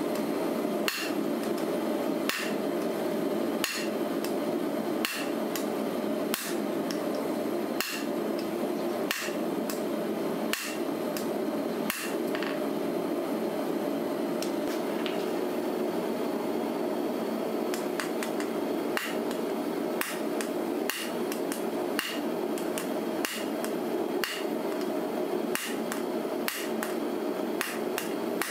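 Hand hammer striking a red-hot canister-damascus steel billet on an anvil: forging the blade into shape. The blows come steadily, about one every 0.7 s, each with a short metallic ring, with brief pauses, over a steady rushing noise.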